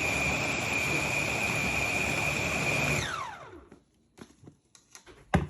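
Electric meat grinder and chopper motor running at a steady speed with a high whine as its blades blend. About three seconds in it is switched off and winds down, falling in pitch. A few light knocks follow, with one sharp knock near the end.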